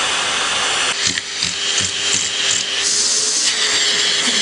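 Vacuum cleaner running with a steady suction hiss through its hose nozzle, the sound shifting about a second in and again near the end as the nozzle is pressed against and moved over a cat's fur.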